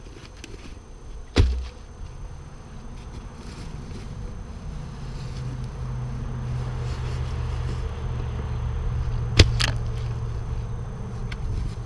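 Two sharp knocks of wood on wood, about a second and a half in and again near the end, as bridge logs or boards are set in place. A steady low hum comes in midway and fades out near the end.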